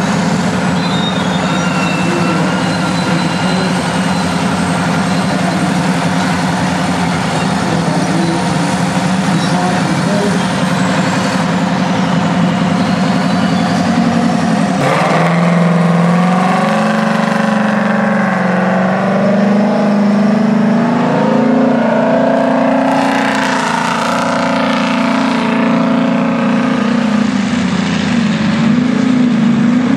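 Diesel engines of an International Harvester Pay Loader 560 wheel loader and a Pay Hauler 350B dump truck running under load while the loader fills the truck. The sound is steady at first, then from about halfway the engines rev, their pitch rising and falling as the machines work and the loaded truck pulls away.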